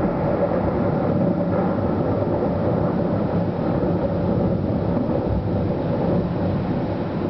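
Thunder rumbling low and steady through a night thunderstorm, with no single sharp crack.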